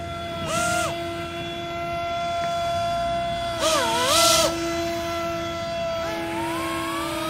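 A 3D-printed RC hovercraft's motors and propellers whining steadily, revved up in short bursts: briefly about half a second in, loudest around four seconds in with a hiss and a dip and rise in pitch, and again from about six seconds on with a slow climb in pitch.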